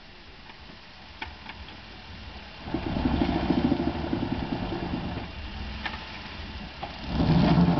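Jeep Wrangler Rubicon's engine idling, then pulling under load twice: from about three seconds in and, louder, near the end. The Jeep is stuck, bottomed out on a dirt mound.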